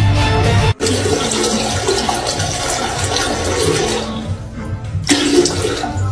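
Rushing water, with music faintly underneath. The sound changes suddenly about five seconds in, and a fresh stretch of rushing noise begins.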